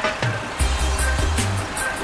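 Background music: a bass-heavy beat with quick high ticks comes in about half a second in.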